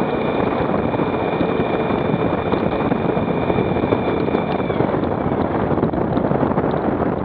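Motorcycle on the move, with heavy wind noise on the microphone. A steady high whine runs through it and drops in pitch a little under five seconds in.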